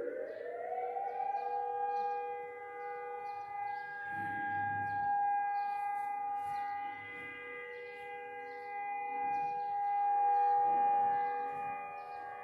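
Civil air-defence siren winding up to full pitch in the first second, then holding one long steady wail that slowly swells and fades in loudness. It is the continuous tone sounded for a national day of mourning.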